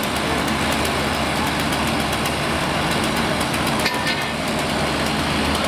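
Fire apparatus engine running steadily, a continuous low drone.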